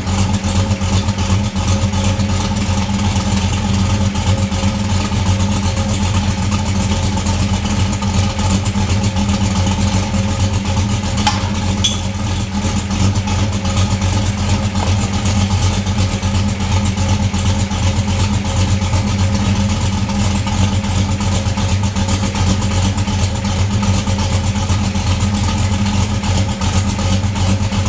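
Pontiac G8 GT's V8 engine idling steadily, seen from beneath the car on a lift. It is kept running so the 6L80 transmission, warmed to about 100 degrees, can have its fluid level checked at the check plug.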